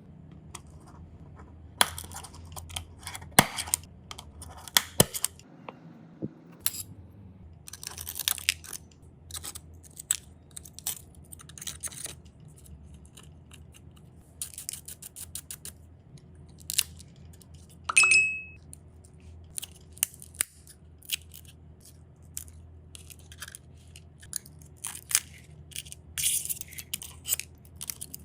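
Small repair tools clicking, tapping and scraping against an iPhone 12 Pro Max with cracked back glass, in irregular short strokes. A short ringing ping about eighteen seconds in is the loudest sound.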